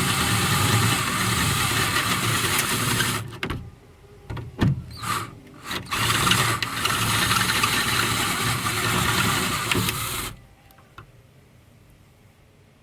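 Electric drill drilling out a steel rivet with a 5/16 bit: it runs for about three seconds, gives a few short blips, then runs again for about four seconds and stops suddenly.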